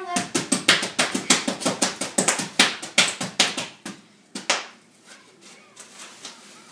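Bubble wrap popping under children's feet and hands: a fast run of sharp pops, several a second, that thins out after about four seconds to a few scattered pops.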